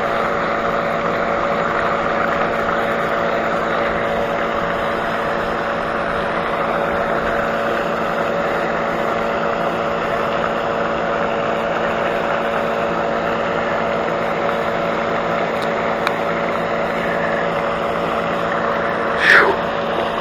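A steady motor drone at a constant pitch, unchanging throughout, with a brief higher-pitched sound near the end.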